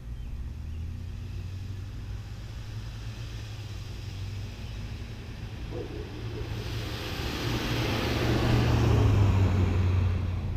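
A vehicle driving past on the street: its noise swells from about six seconds in to a peak near the end, then starts to fade, over a steady low rumble.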